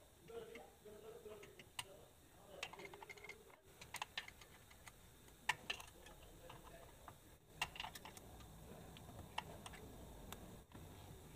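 Scattered light metallic clicks and taps of a small screw, screwdriver and sheet-metal cover plate being fitted by hand, with the sharpest click about five and a half seconds in.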